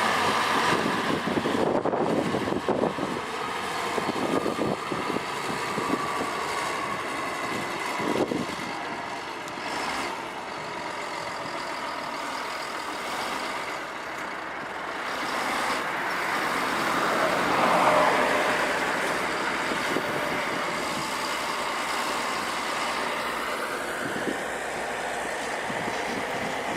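Heavy diesel road-construction machinery, a motor grader and road rollers, running steadily, with the engine noise swelling louder and higher about seventeen seconds in before settling back.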